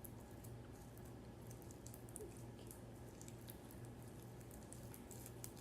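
Faint wet squishing and small sticky clicks of homemade glue slime being kneaded and pulled by hand, over a low steady hum.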